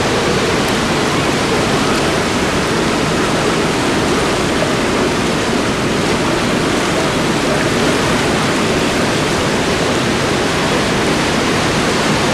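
Koshi River in high flood rushing past, a loud, steady rush of water.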